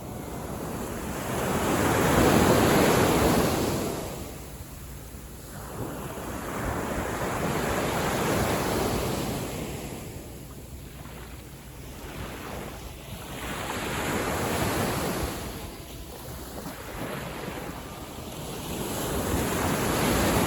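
Gentle sea waves washing onto the beach in slow surges, about one every six seconds, the first about two seconds in the loudest.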